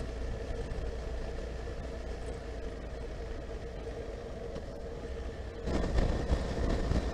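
Honda CB1300SF's inline-four engine running steadily at low revs, picked up on the rider's microphone; about two-thirds of the way through the sound jumps suddenly louder and rougher.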